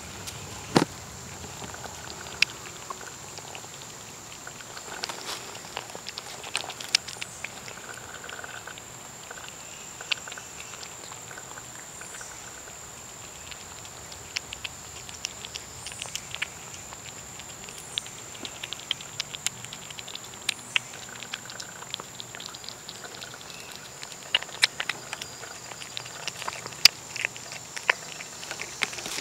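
A cat eating tuna from a small bowl close to the microphone: irregular wet chewing clicks and smacks, thicker in clusters a few seconds apart.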